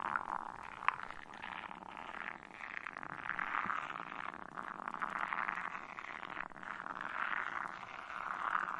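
Shaving cream foam squishing close to the microphone: a continuous crackle of many fine pops that swells and eases in loudness.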